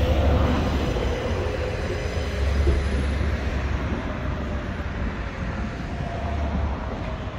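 Metra Electric electric multiple-unit commuter train running toward and under the overpass: a steady rumble of wheels on rail with a faint steady whine.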